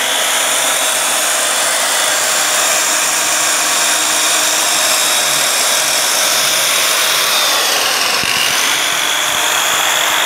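Electric saw motor of a Longde D7 tile and stone cutting table running at speed with its diamond blade spinning, a steady high whine over loud noise. The pitch sags briefly about eight seconds in, then comes back up.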